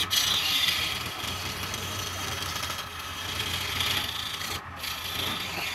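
Gouge cutting a spinning wooden blank on a lathe: a continuous scraping hiss of wood being peeled off, over a steady low hum. The cutting sound drops out for a moment about four and a half seconds in.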